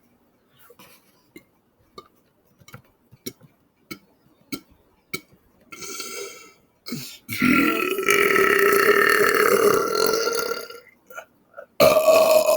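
A man belching after drinking sparkling soda: a short burp about six seconds in, then one long, loud belch lasting about three seconds. Light clicks and taps come before it, and another short loud burst comes near the end.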